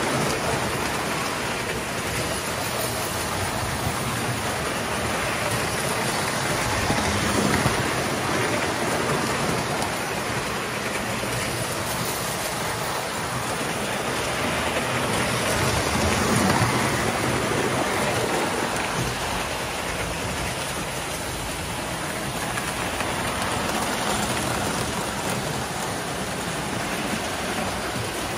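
Several toy trains running on a model-railroad layout: a steady rushing clatter of metal wheels rolling on metal track with motor hum. It swells a little about seven seconds in, and more strongly after about sixteen seconds as a train passes close.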